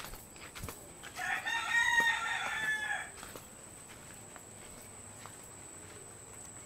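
A rooster crowing once, a single crow of about two seconds starting about a second in.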